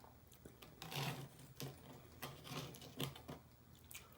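Close-miked chewing of crispy fried food, with irregular soft crunches and mouth sounds.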